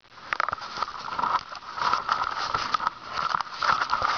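Handling noise from a hand-held camera being lifted off its mount and carried: irregular clicks, rubs and scrapes on the microphone, over a steady mid-pitched whine in the background.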